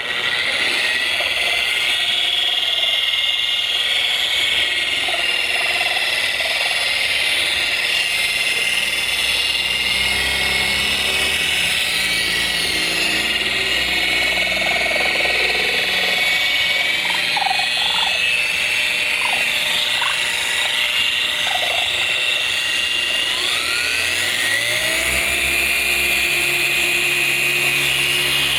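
Electric car polisher running steadily with a high whine, compounding black car paint to take out swirl marks. Its pitch rises and settles higher about 24 seconds in.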